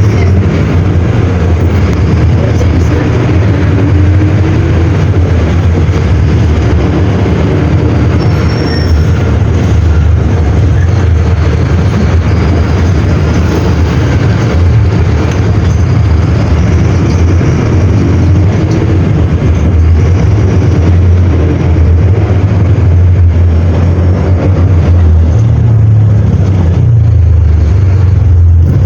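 Mercedes-Benz OM-924 LA four-cylinder inline turbo-diesel of an OF-1721L BlueTec 5 bus, running steadily with a low, even engine note.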